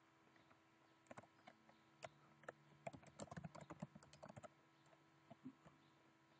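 Faint computer keyboard typing, typing a short command: a few scattered keystrokes, then a quick run of them about three seconds in.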